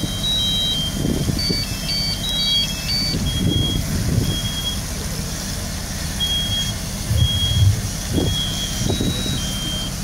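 Smoke alarms beeping, high-pitched tones at two pitches repeating every second or so, with a brief faster run of beeps about two seconds in. Under them runs a steady low engine rumble, with gusts of wind on the microphone.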